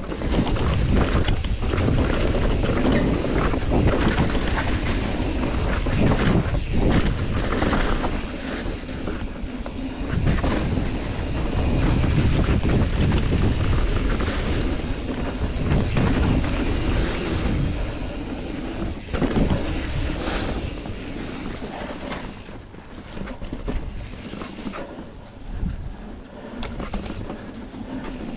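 A steel hardtail mountain bike ridden along a dirt singletrack: a steady rumble of knobby tyres on dirt, with chain and frame clatter over the bumps. It grows quieter with gaps in the last few seconds.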